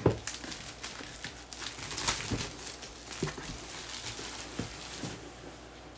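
A box's packaging being opened and handled: continuous crinkling and rustling with scattered light clicks and knocks, busiest in the first couple of seconds and easing off toward the end.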